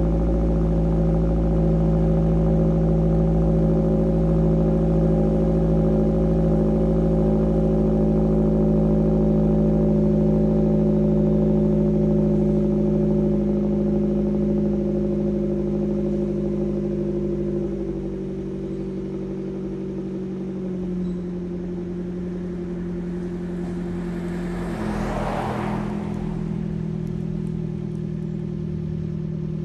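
Fiat 124 Abarth's 1.4-litre turbocharged four-cylinder idling through an aftermarket crosspipe and resonated cat-back exhaust. The idle steps down lower and quieter about eighteen seconds in, and a brief hiss rises and fades about twenty-five seconds in.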